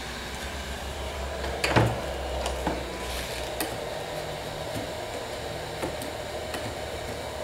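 A wooden aileron frame knocks once onto a laminate table about two seconds in, then light clicks and taps as it is handled. Underneath, a steady hum and noise from an electric heat gun warming the glued wooden joints to soften the epoxy.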